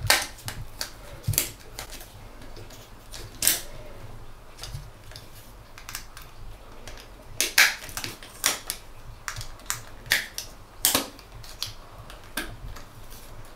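Small irregular clicks and taps of a screwdriver working the terminal screws of a plastic ceiling rose, as the wires are loosened and pulled out of the terminals.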